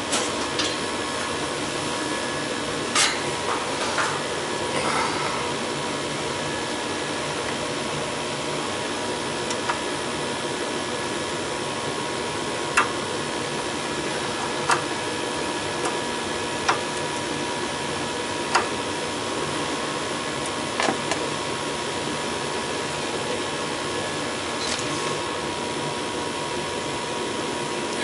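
Gas furnace running with its burners firing, a steady rushing hum with a faint steady whine, while it burns too little gas (high oxygen, low CO2 in the flue). About eight light clicks and taps come from work at the gas valve as its gas pressure is adjusted.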